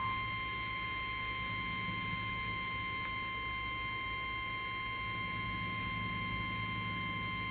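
NOAA Weather Radio warning alarm tone: one steady, unwavering high beep that starts abruptly and holds, with a low electrical hum underneath, heard through a radio receiver. It is the alert signal that comes before a National Weather Service warning broadcast.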